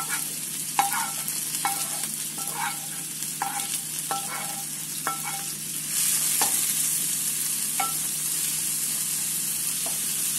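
Chopped green onion and red bell pepper frying in oil in a nonstick wok: a steady sizzle, with a wooden spoon knocking and scraping on the pans about once a second for the first five seconds. About six seconds in the sizzle grows louder as the vegetables are stirred, with a few more spoon knocks.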